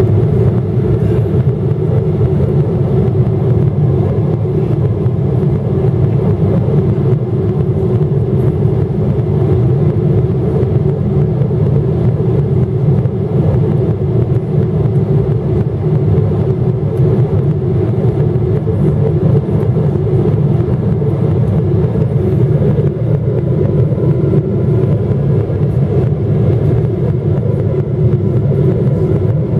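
Boeing 777-300ER cabin noise heard from a window seat beside the wing, on approach: the GE90 turbofan engines and airflow make a loud, steady low drone.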